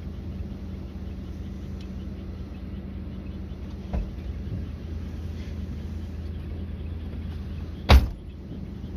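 Distant aerial fireworks going off, a small thump about four seconds in and a sharp, much louder bang near the end, over a steady low hum and faint insect chirping.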